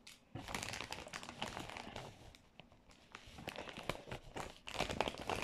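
Plastic chip packet crinkling as it is handled and squeezed, in two stretches with a quieter pause around the middle.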